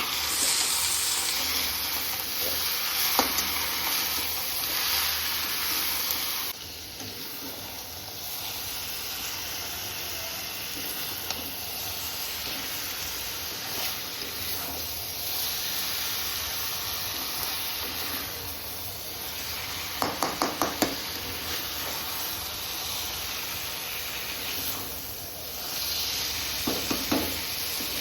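Chicken nuggets frying in a pan: a steady sizzle that turns a little quieter about six and a half seconds in. A few quick taps of a utensil against the pan come about twenty seconds in and again near the end.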